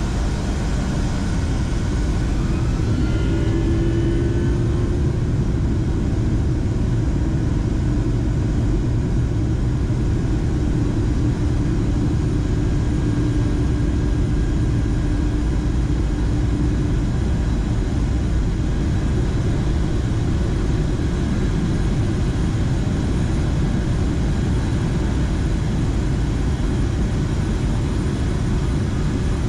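Boeing 757 jet engines at takeoff power, heard from inside the cabin beside the wing: a loud, steady rumble with a whine that rises in pitch a few seconds in, running on through the takeoff roll and climb-out.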